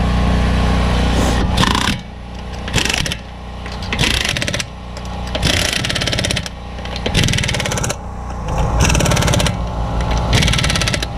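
Pneumatic impact wrench tightening a car's wheel lug nuts in about eight short bursts of hammering, each under a second, over a steady low hum.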